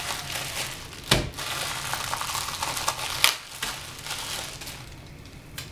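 Small clear plastic bag crinkling and rustling as it is pulled open by hand, with a few sharp crackles; the rustling thins out over the last couple of seconds.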